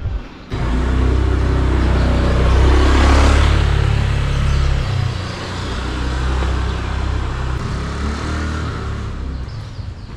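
A vehicle engine running close by. It comes in suddenly about half a second in, is loudest around three seconds in, then settles to a lower, steady running sound.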